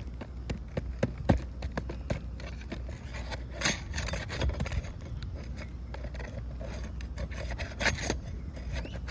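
Hand tools scraping and clicking against old asphalt shingles as they are pried up and their nails worked loose: scattered sharp taps, with two longer scrapes about a third of the way in and near the end.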